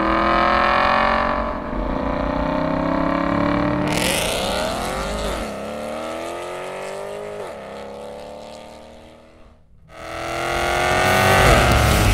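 Aston Martin V8 Vantage's V8 engine through an aftermarket Fi catless, X-pipe, valved exhaust with the valves open, revving hard under acceleration. The pitch climbs, drops sharply twice and climbs again as it shifts up. It fades away briefly near the end, then comes back loud.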